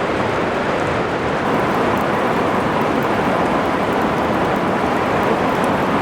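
Heavy rain falling steadily: an even, loud rushing hiss with no thunderclap in it.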